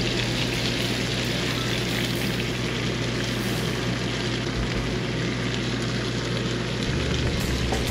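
Steady sizzle of diced pork frying in hot oil in a skillet as cold leftover rice is tipped in on top.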